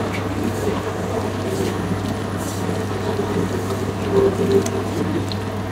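Commercial spiral dough mixer running with a steady motor hum as its spiral hook kneads a large batch of bread dough.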